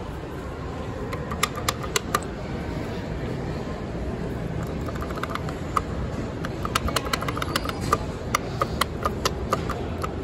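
Sharp, irregular clicks of an elevator hall call button being pressed over and over: a few about a second and a half in, then a denser run from about six and a half seconds, over a steady background hum.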